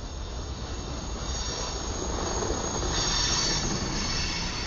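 Loaded freight cars, centerbeam flatcars stacked with wrapped lumber, rolling past with a steady low rumble of wheels on rail and a high, thin metallic wheel squeal on top. The squeal is loudest about three seconds in.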